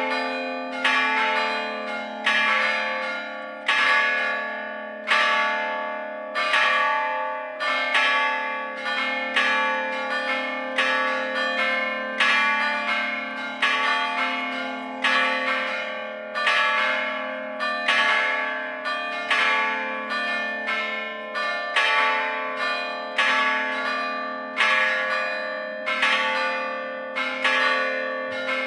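Full peal of four bronze church bells cast in Gescher, hanging still and struck rather than swung. A steady run of strokes from the different bells, each one ringing on under the next.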